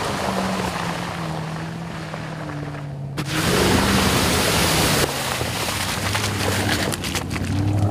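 Aston Martin DBX's twin-turbo V8 running at low revs on a dirt track, its pitch easing down slightly. About three seconds in comes a loud rush of splashing as the SUV drives through a muddy water hole, lasting nearly two seconds. After that the engine runs at a lower steady drone with scattered sharp ticks.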